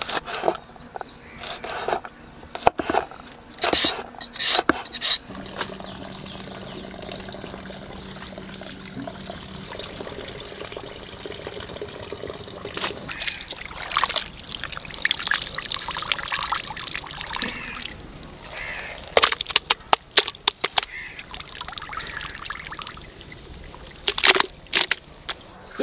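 A kitchen knife chopping green beans on a wooden board: a run of sharp knocks in the first five seconds. Later comes a stretch of pouring, trickling liquid, and a few knocks near the end as pieces of raw mutton drop into a wicker basket.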